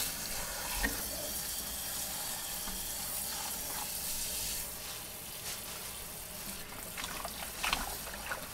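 Pull-down kitchen faucet spraying cold water onto raw oxtails in a metal bowl in a stainless steel sink: a steady hiss of spray and splashing, a little softer after about five seconds, with a few light knocks near the end.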